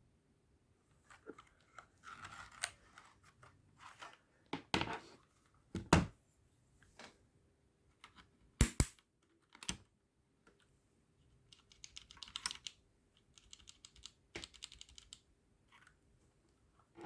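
Trust GXT 865 Asta mechanical keyboard with red linear switches being typed on: quick runs of key clacks, with several louder single keystrokes in between.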